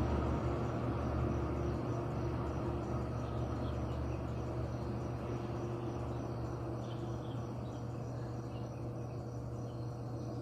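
Steady low mechanical hum with a few steady tones, slowly fading, reported as an abnormal noise at a parking space that disturbs residents. Faint insect or bird chirps come in about halfway through.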